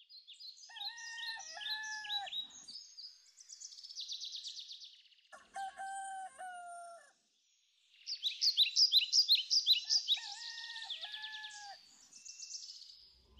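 A rooster crowing several times over a busy chorus of small songbirds chirping and trilling.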